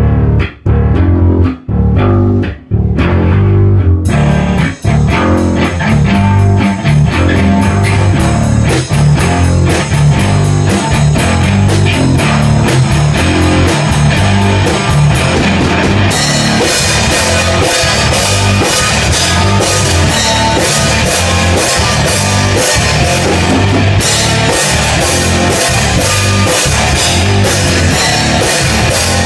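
Rock band playing: a bass and guitar riff with short stops, drums and cymbals coming in about four seconds in, and the full band louder and brighter from about halfway through.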